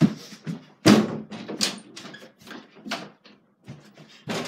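Knocks and bumps from a six-panel interior door being hit and swung open. The loudest thump comes about a second in, followed by a run of smaller knocks and rattles.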